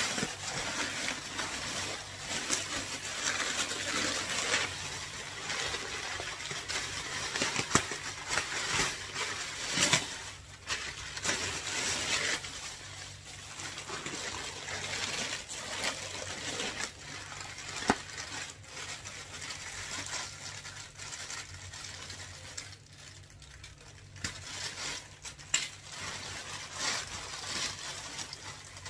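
Clear plastic packaging rustling and crinkling as it is handled and pulled open, with a few sharp snaps.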